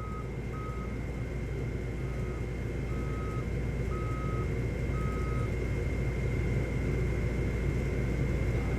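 Skid steer engine running steadily while its reversing alarm beeps in short, evenly pitched beeps; the beeping stops a little past halfway.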